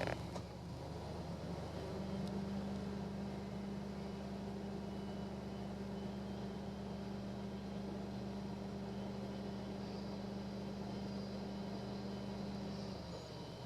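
An engine running at a steady low pitch, starting about two seconds in and cutting off near the end, over a low rumble.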